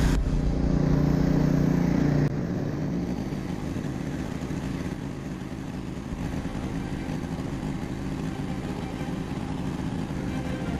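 Troy-Bilt Vortex 2890 three-stage snowblower running steadily while it throws snow, with a steady engine drone and rumble. The sound steps down in level about two seconds in, then stays even.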